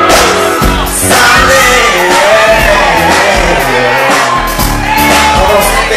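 A live pop band performs through the hall's PA, with drums, synthesizer and keytar. About a second in, a man starts singing into the microphone.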